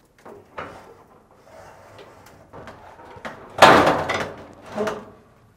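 Sheet-metal dryer drum and chassis assembly being lowered into its cabinet: a few light clicks and scrapes, then a loud clunk about three and a half seconds in as it sets down, and a smaller knock near the end.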